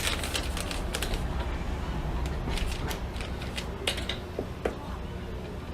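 Irregular light clicks and clatter of objects being handled, the sharpest about four seconds in, over a steady low hum.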